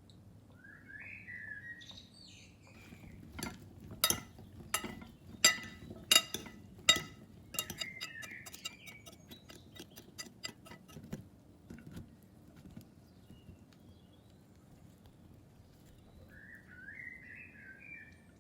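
A run of sharp kitchen knocks and clinks, spaced about two-thirds of a second apart and then quicker, stopping about two-thirds of the way through, while a small bird chirps in short phrases at the start, in the middle and near the end.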